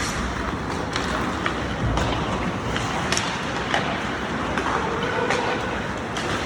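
Ice hockey play in a rink: a steady scraping rush of skates on the ice with sharp clacks of sticks and puck scattered throughout.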